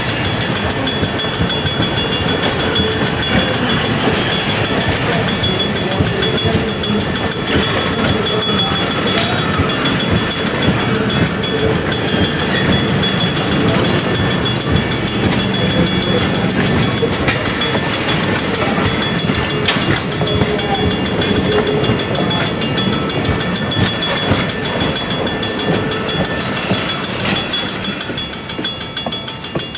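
Heavyweight steel passenger coaches rolling past at speed, their wheels rumbling and clattering on the rails, with the grade-crossing warning bell ringing steadily over it. The train sound eases off near the end as the last car clears the crossing.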